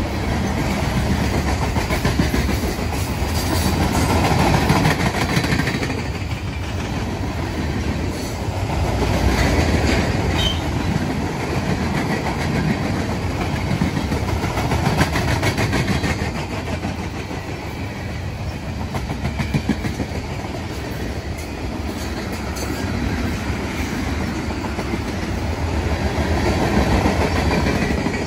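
Mixed freight train rolling past: a steady rumble of steel wheels on rail with a clickety-clack over the rail joints, swelling and easing every few seconds as the cars go by.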